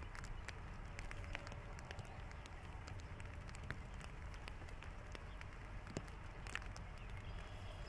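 Light raindrops tapping irregularly on a plastic rain poncho, scattered sharp ticks over a low steady rumble.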